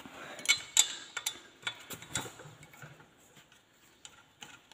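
Irregular metallic clicks and taps of hand tools working on a pit bike engine while parts are unbolted, busier in the first couple of seconds, then sparse.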